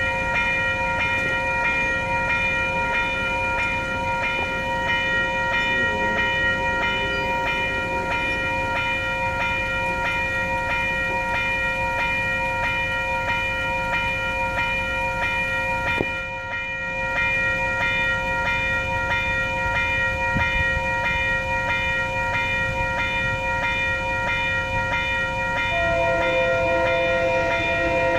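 Multi-chime air horn on a rebuilt Kawasaki passenger cab car sounding long, steady blasts. It eases briefly about two-thirds of the way through, then sounds again, and extra lower notes join near the end.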